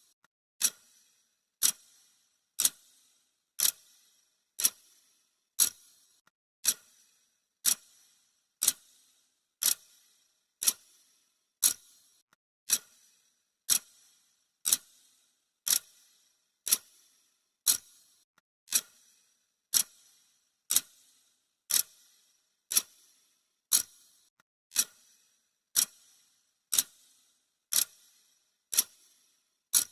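Clock-ticking sound effect: a sharp, bright tick once a second, steady and even, marking the countdown.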